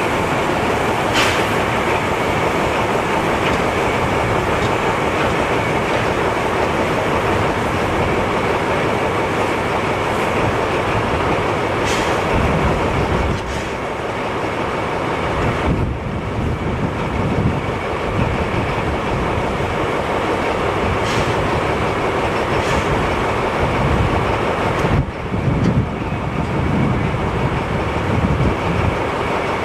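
Narrow-gauge steam locomotive working on depot track: a steady hiss and rumble, with wheels clattering on the rails and a few sharp metallic clanks.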